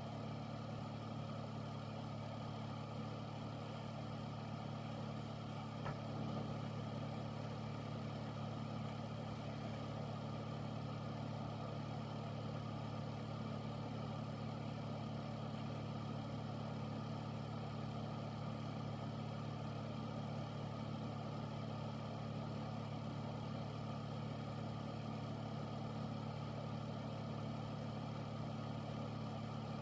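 Air filter fan running steadily: a low, constant hum under an even rush of air, with one faint tick about six seconds in.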